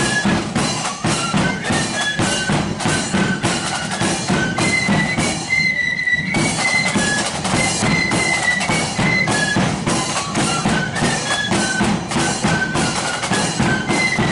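Marching flute band playing a tune: flutes carry a high, stepping melody over snare and bass drums beating a steady march rhythm.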